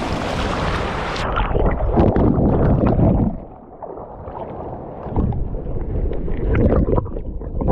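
Water splashing and sloshing as a snook is released back into the shallows, loudest in a burst of splashing during the first second, then uneven surges of water, with wind buffeting the microphone.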